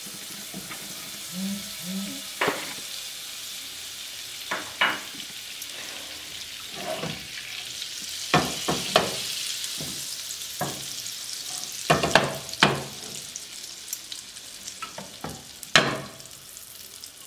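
Butter melting and sizzling in hot olive oil in a nonstick frying pan: a steady hiss with scattered sharp pops.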